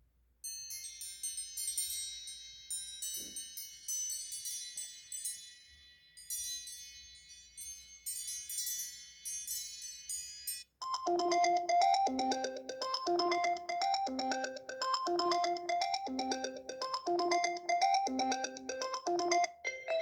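iPhone 4S ringtones playing one after another. First comes a high, tinkling ringtone of quick notes. About halfway through it switches abruptly to a different ringtone, a lower repeating melody of struck notes.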